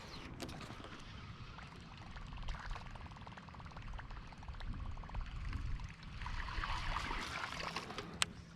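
Water gurgling and splashing, with a swell in the last couple of seconds and a sharp click near the end.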